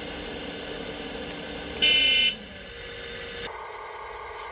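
Radio-controlled model construction vehicle's electric motors whining steadily. About two seconds in, a short, loud electronic beep sounds once. Shortly after the middle, the motor sound changes abruptly to a lower, different drone.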